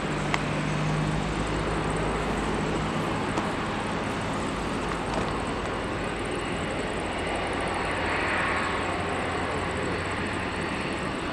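Airbus A330neo's Rolls-Royce Trent 7000 turbofan engines running steadily at low power while the airliner taxis into line on the runway, a constant rumble and hiss with a low hum. One sharp click sounds just after the start.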